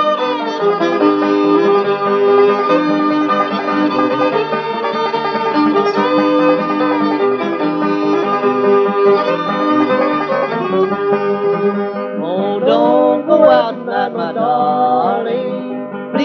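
Old-time string band on a 1938 78 rpm record: fiddle, banjo and guitars play the instrumental intro, and singing comes in about twelve seconds in.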